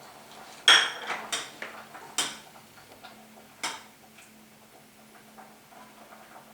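Kitchen utensils and cookware clinking: four sharp clinks, the first and loudest about a second in, the last about three and a half seconds in.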